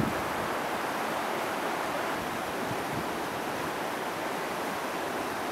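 Steady outdoor rushing noise, even and unbroken, with no distinct events.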